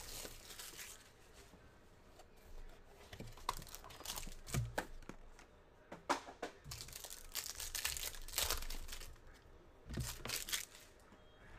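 Plastic wrap and foil trading-card pack wrappers being crinkled and torn open by hand as a Panini football card box is opened, in uneven bursts of rustling with a few soft knocks.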